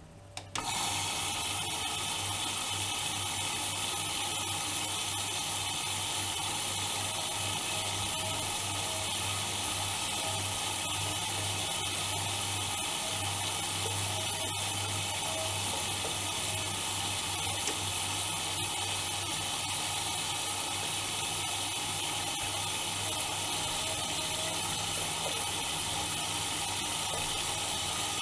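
Bauknecht WAK 5750 G washing machine drawing in water: a steady rushing hiss of water through the inlet valve and detergent drawer with a low hum. It starts suddenly about half a second in.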